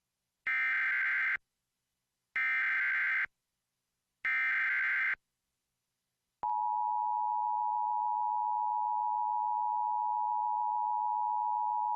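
Emergency Alert System SAME header: three identical bursts of data tones, about a second each and a second apart, which encode a tornado warning. About a second and a half after the last burst, the steady two-tone EAS attention signal (853 and 960 Hz) starts and holds.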